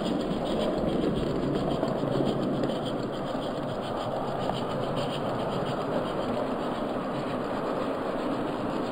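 Hornby OO gauge live-steam A4 locomotive running along the track: a fast, even steam chuff over the rumble and scrape of wheels on the rails, played back slowed down. It eases slightly about three seconds in.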